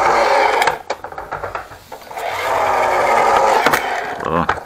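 Plastic toy bus pushed along a wooden floor, its wheels and gearing whirring in two runs: a short one at the start and a longer one from about two seconds in, which winds down near the end.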